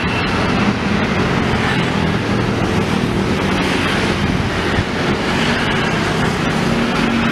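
Busy road traffic passing close by: a steady mix of motorbike, car and bus engines with tyre noise. Near the end a Hino coach bus goes past at close range, its engine hum standing out.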